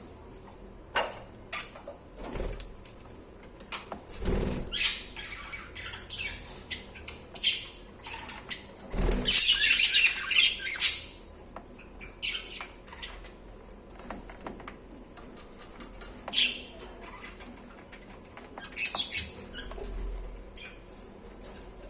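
Pet budgerigars chirping, squawking and fluttering: a string of short, scratchy calls and rustles, with a longer, louder stretch about nine to eleven seconds in.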